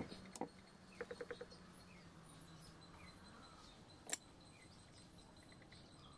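Mostly quiet, with small metal clicks and taps from parts of a Singer 1288 sewing machine being handled: a quick run of about five clicks around a second in and a sharper single click about four seconds in. Faint bird chirps sit behind.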